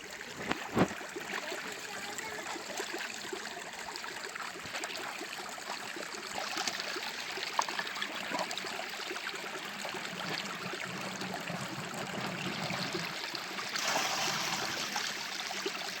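Running water, a steady stream or trickle, with scattered small clicks and a knock about half a second in. The rush grows louder and brighter near the end.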